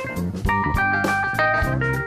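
A small band playing live: an electric guitar plays a quick run of notes over keyboard and a drum kit with cymbal strikes.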